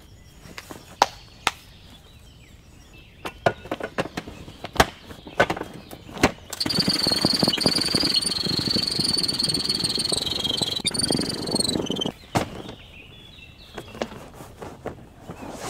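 Scattered clicks and knocks from handling the parts of an inflatable dinghy. About six seconds in comes a steady rush of air with a high whistle that lasts about five seconds and stops abruptly: a foot pump pushing air through its hose into the dinghy's tube.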